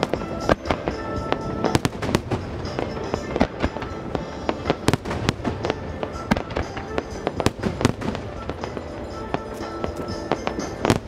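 Starmine fireworks display: many aerial shells bursting in quick, irregular succession, sharp bangs over music played for the show.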